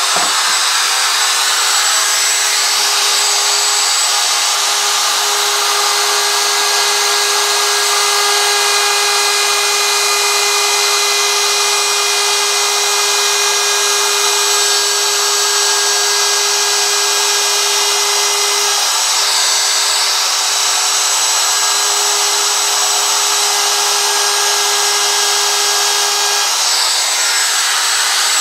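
DeWalt DW618 plunge router running and cutting into a wooden sign board, a loud, steady high whine over the noise of the bit chewing wood. The pitch wavers briefly twice, about two-thirds of the way through and near the end.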